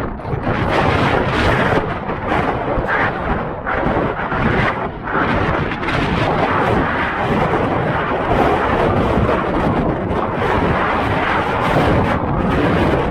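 Wind buffeting the DJI Osmo Action camera's microphone: a loud, continuous rush of noise with a deep low end that swells and dips, even with the camera's wind reduction switched on for the test.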